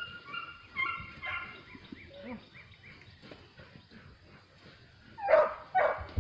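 Beagles whining with high, thin held notes over the first couple of seconds, then two loud barks about five seconds in.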